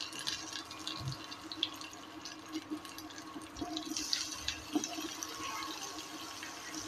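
Hot oil with cumin seeds and curry leaves sizzling and crackling in a frying pan. About four seconds in, boiled baby potatoes are tipped in with a few soft knocks, and the sizzle briefly gets livelier.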